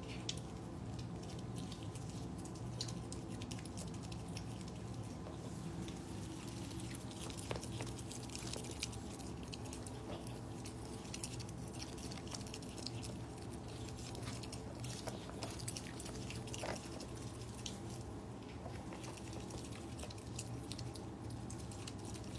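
Otters crunching dry food pellets: irregular crisp crunches and clicks of chewing, over a steady low hum.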